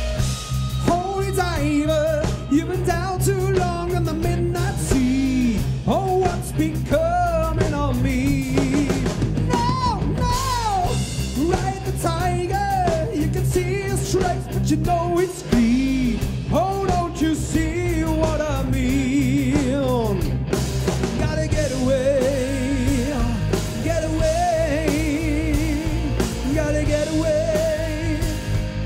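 A live rock'n'roll band playing a song: a man singing over drums, bass and electric guitar, holding long wavering notes near the end.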